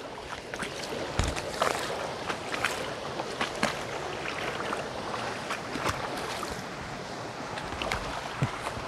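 Shallow creek water running steadily, with irregular small splashes and sloshes through it as someone wades.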